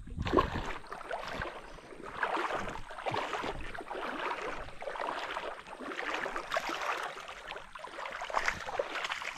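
Shallow creek water splashing and sloshing in uneven bursts as a hooked European carp is played and drawn into the shallows.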